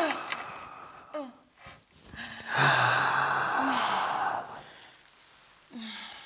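Vocal warm-up into a microphone: breathy, sigh-like exhalations and short falling vocal glides. The loudest is a long breathy exhale over a low hum, starting about two and a half seconds in.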